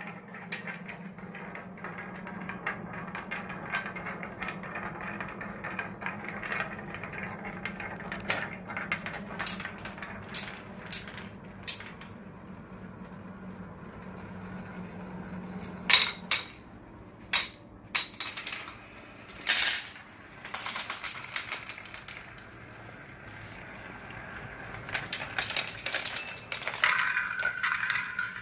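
Marbles rolling along a wooden marble run: a steady rolling rumble for the first half, then a string of sharp clacks as marbles drop and strike wood, and a rattling clatter near the end.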